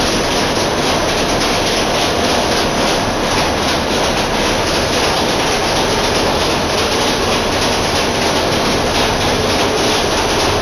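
Rockwool sandwich panel production line running: a loud, steady mechanical din of motors, chain drives and roll-forming rollers with a fine, even rattle.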